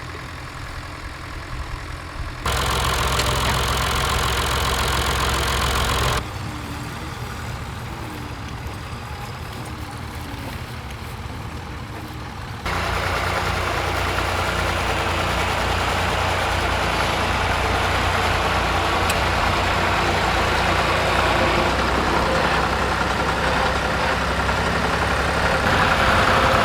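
Tractor engines running while working in a field, heard in several short clips that change abruptly in level: louder from about two and a half seconds, quieter from about six, and louder again from about twelve and a half seconds on.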